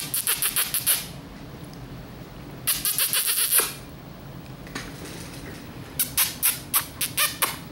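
Three runs of quick kissing noises from a person calling to sleepy puppies to wake them. The first runs about a second at the start, another comes near the middle, and a slower run of separate smacks comes near the end.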